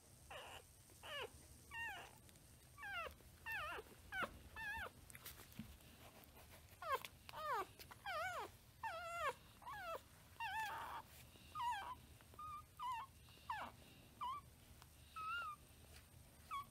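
Newborn puppies whimpering and squealing as they jostle to nurse on their mother. The cries come one after another, about one or two a second, each falling in pitch. Later on they become shorter, higher squeaks.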